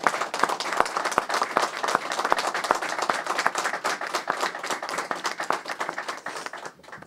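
A small group applauding with dense hand clapping that thins out and stops just before the end.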